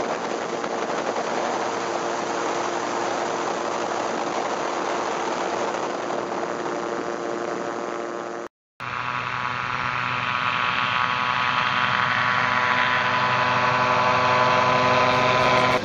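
An MTO-Sport gyrocopter's Rotax flat-four engine and pusher propeller running hard through the takeoff roll and climb-out, heard from the open cockpit with a rush of air noise. After an abrupt cut partway through, the gyro's engine is heard from the ground as a steady drone that grows gradually louder.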